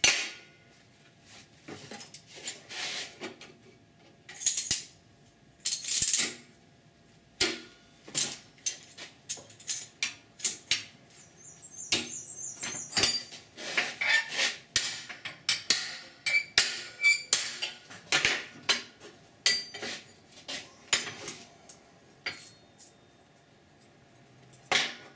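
Sheet-metal patch panel and locking C-clamps clinking and clanking against a steel workbench as the clamps are set and adjusted: irregular sharp metal clicks and knocks, busiest in the middle, with a brief squeak about twelve seconds in.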